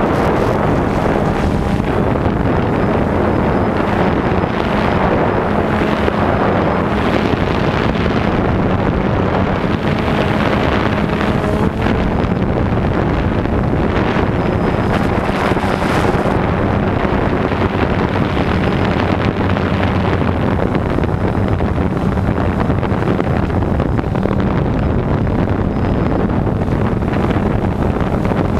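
Radio-controlled model helicopter in flight, heard from a camera mounted on it: a steady drone of rotor and motor with wind rushing over the microphone.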